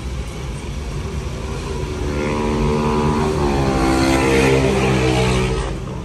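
A motor vehicle's engine passing on the road, growing louder from about two seconds in, its note dropping in pitch midway as it goes by, then fading out near the end, over a steady low engine rumble.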